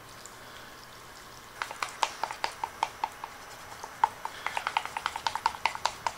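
Thin wooden stick stirring water putty into a paste in a small stainless steel cup, clicking against the metal sides in quick, irregular taps that start about a second and a half in.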